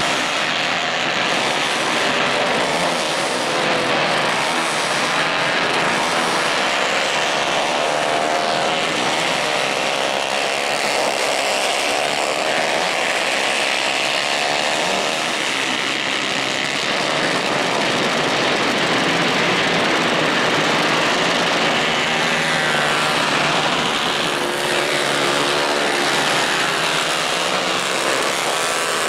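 Racing kart engines at high revs, buzzing as the karts race past. Their pitch rises and falls as the drivers accelerate and lift off through the corners.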